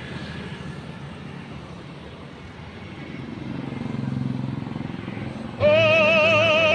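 Steady road traffic noise heard from a moving ride, swelling as a vehicle passes a few seconds in. Near the end a loud, wavering, held tone cuts in suddenly and is the loudest sound.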